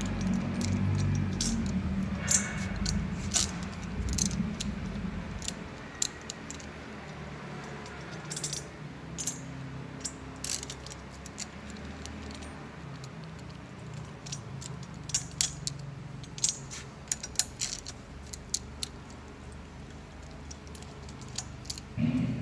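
Hand ratchet on a long extension with a 13 mm socket, clicking in short irregular runs and clinking against metal as it unscrews the end-bell bolts of an electric motor, over a low steady hum.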